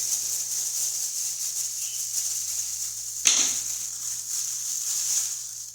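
Small clicks and rattles of a tool working at the screws of a plastic GFCI outlet housing, with one sharp knock a little past three seconds in.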